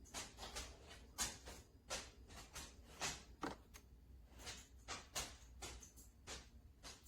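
Irregular light clicks and knocks, one or two a second, over a low steady hum, like small objects being handled.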